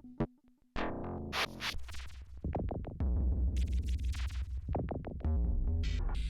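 Erica Synths Perkons drum machine playing a slow pattern of experimental synthetic percussion sounds from its '01' kit pack, with no added effects. After a brief gap near the start, layered pitched hits and clicks come in, and a heavy low tone joins about three seconds in.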